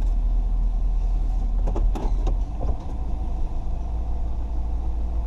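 Car engine idling, a steady low rumble heard from inside the cabin, with a few light clicks about two seconds in.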